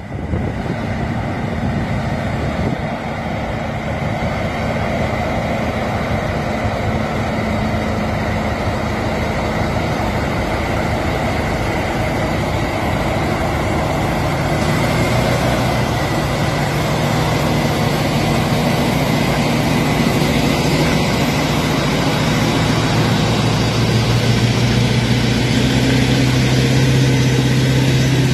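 Heavy diesel engines of a heavy-haul truck and modular transporter running steadily at low revs. The low drone grows stronger from about halfway through.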